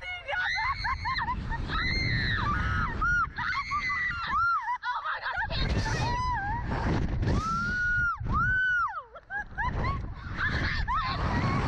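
Two young women on a slingshot ride screaming and shrieking with laughter, with a few long high-pitched screams about two-thirds of the way through. Wind rushes and rumbles over the on-board microphone underneath.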